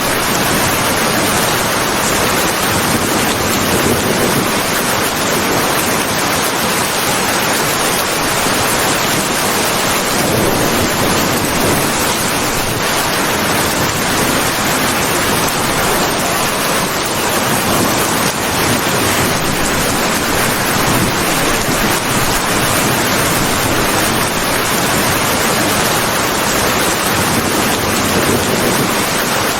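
Steady heavy rain, an even dense hiss of falling water without distinct drops or thunder, swelling slightly now and then.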